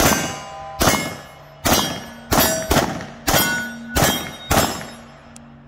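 Hi-Point C9 9mm pistol firing seven shots in a quick string, a little under a second apart, each with a short ringing tail. The pistol is new and unoiled, fired straight out of the box, and cycles through the string without a jam.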